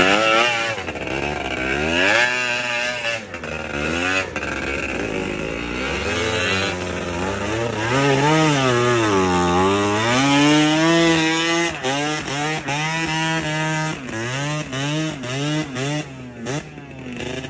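Enduro dirt-bike engine being ridden, its pitch rising and falling again and again as the throttle is opened and closed. Several sharp knocks come in the last few seconds.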